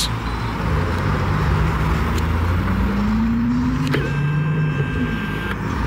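C6 Corvette V8 running as the car pulls away, its pitch rising for a couple of seconds as it accelerates. About four seconds in a thin, steady high tone sounds over the engine for under two seconds.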